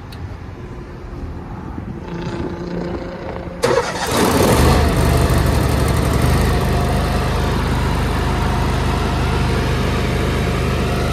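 Gasoline engine of a Lincoln Ranger 305G welder/generator being started: it catches with a sudden burst about three and a half seconds in, then runs steadily and loudly.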